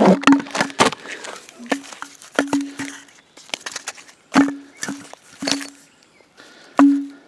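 Irregular sharp knocks and clacks, several with a short low ring after them, as firework cakes and tubes are handled and set out.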